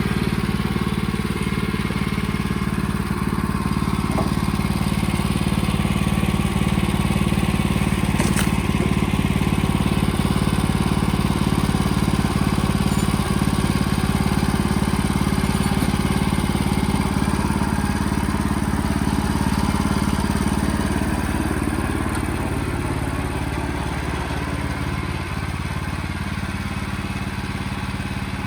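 Sawmill engine running steadily, a little quieter for the last several seconds.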